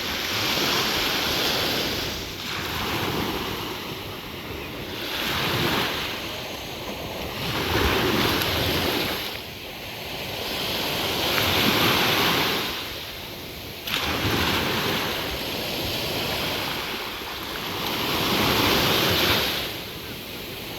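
Sea waves washing ashore, the surf hiss swelling and fading again every two to four seconds.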